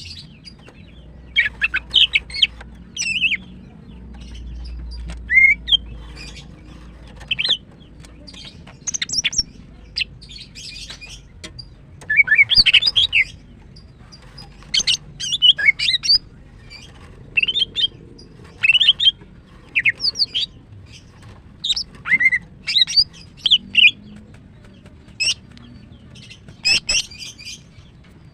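Female green leafbird (cucak ijo) calling in short clusters of high, quick chirps and trills, repeated every second or two with brief pauses between. These are the calls of a female in breeding condition calling to males.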